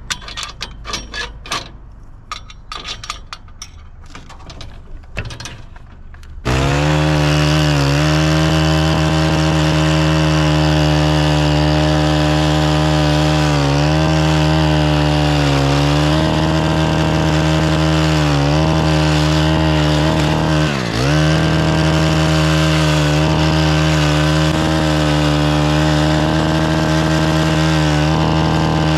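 Scattered clicks and knocks. About six seconds in, a small gas-powered stick edger starts up abruptly and runs at steady high speed as its blade cuts soil along a sidewalk edge. Its engine speed dips briefly several times, most deeply a little past two-thirds of the way through.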